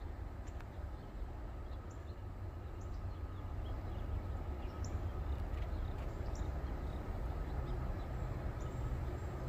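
Low, steady rumble of an approaching diesel freight train, slowly growing louder, with short high bird chirps scattered over it.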